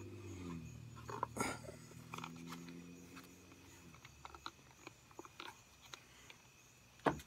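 A low droning hum of several steady tones, which steps down in pitch just after the start and fades out about four seconds in. Through it come scattered light clicks and knocks of handling, and a sharper knock near the end.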